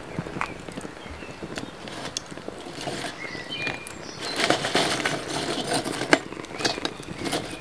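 Kindling fire of dry sticks over charcoal crackling and popping as it catches. About halfway through, a hand shifting the burning sticks makes a burst of rustling and wooden clatter, ending in a sharp snap.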